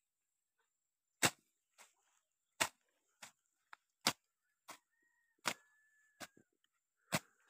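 Machete slashing grass: a sharp swishing strike about every second and a half, with a lighter stroke in between.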